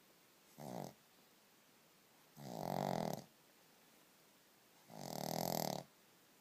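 A pug snoring in its sleep: three snores, a short one just under a second in, then two longer, louder ones about two and a half seconds apart.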